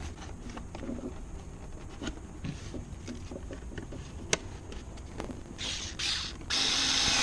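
Small plastic clicks and rattles as a tail-light bulb holder is handled. About five and a half seconds in, a small cordless screwdriver runs in several short trigger bursts, the last one longest and loudest, driving the holder's screws back in.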